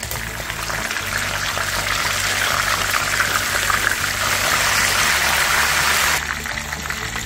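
Whole tilapia deep-frying in hot oil in a nonstick pan: a loud, steady sizzle and crackle of bubbling oil. It drops suddenly in level and brightness about six seconds in.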